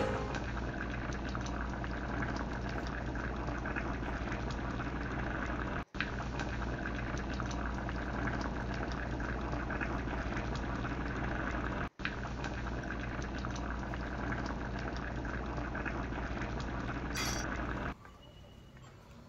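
Thick masala gravy with goat brain boiling in a pan, a steady bubbling that cuts out briefly twice. Near the end it gives way to a much fainter background.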